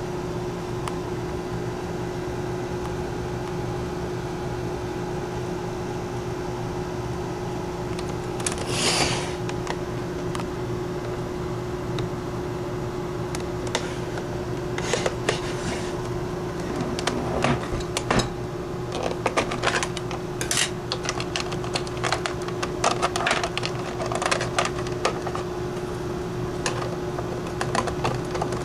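A steady electrical hum with one clear held tone throughout. From about halfway on there are scattered clicks, taps and rustles as the plastic case and power cord of a portable radio-cassette recorder are handled, with one louder swish about nine seconds in.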